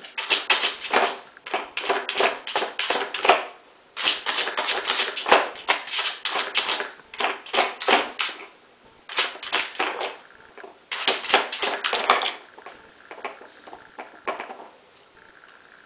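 Hard plastic dog treat-puzzle board (Dog Casino type) clattering and rattling in bursts of rapid clicks as a dog noses and paws at its pieces, with short pauses between bursts. The clicking turns softer near the end.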